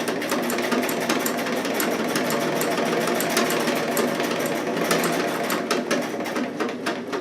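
Vintage Singer Stylist 418 zigzag sewing machine running fast and steadily, its needle stitching with a rapid even clatter through thick layers of material. The owner guesses the feed dogs aren't feeding the work properly.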